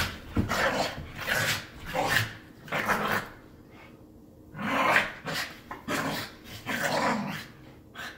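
Two puppies play-fighting, growling in repeated short bursts, with a pause of about a second midway.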